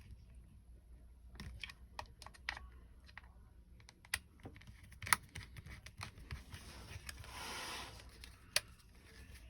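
Faint, scattered small clicks and taps of a small screwdriver working a screw into a handheld radio's belt clip, with a brief rasp about seven seconds in.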